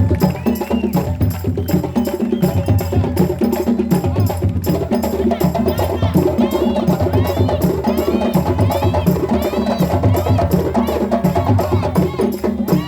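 Live West African drumming: djembe and other drums playing fast, dense strokes over a repeating bass figure, a dance rhythm for sabar.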